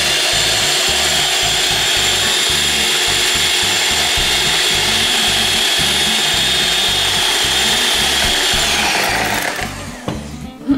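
Vitek electric hand mixer running at one steady speed, its beaters whisking two eggs in a ceramic bowl, with a constant motor whine. About nine seconds in the motor winds down and stops.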